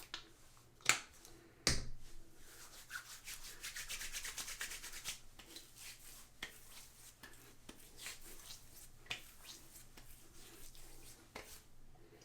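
Hands rubbing aftershave balm together and onto the face: a quick run of soft rubbing strokes from about two seconds to about five seconds in, with lighter scattered rubs and taps after. Two sharp clicks come just before it.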